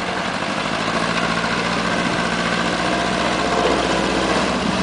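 A 4x4's engine running steadily at low revs as it fords a shallow river, with the rush of the river water and splashing from the wheels.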